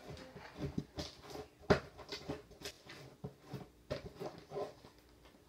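Sticky homemade glue slime being scraped out of a clear plastic container: irregular soft scrapes and plastic clicks, with one sharper click a little under two seconds in.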